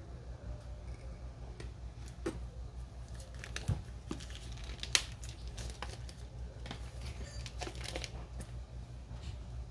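Drone box packaging being handled: irregular crinkling and tearing of wrapping with scattered clicks and taps, the sharpest about three and a half and five seconds in, over a low steady background hum.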